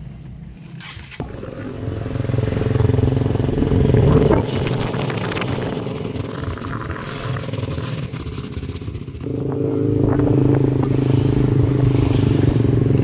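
Motorcycle engine pulling away and running under way, heard from the pillion seat. It picks up about a second in and builds to about four seconds, eases off, then pulls harder again from about nine seconds.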